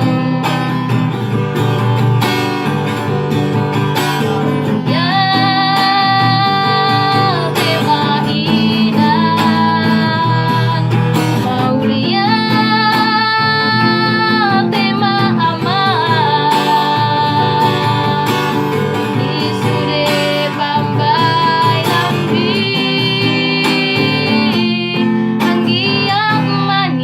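A woman singing in a high voice with held, wavering notes over an acoustic guitar accompaniment.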